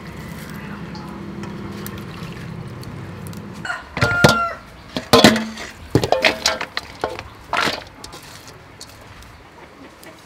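Stainless steel bowls and a metal colander knocking and clattering as shredded vegetables are tipped into a bowl, a burst of sharp knocks in the middle, some with a short metallic ring, with chickens clucking in the background.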